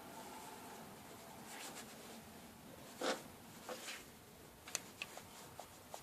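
Light handling noise in a quiet room: a brief rub about three seconds in, then several sharp light clicks.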